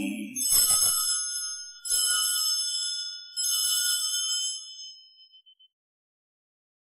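Altar bells rung three times as the chalice is raised at the consecration. Each ring is a cluster of bright, high tones that rings on, and the last one fades out about two seconds after it is struck.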